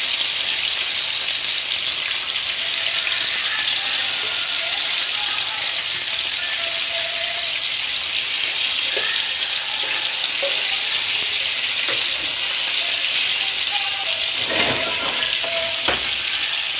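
Whole fish sizzling steadily in hot oil in a pan, with a couple of short knocks near the end.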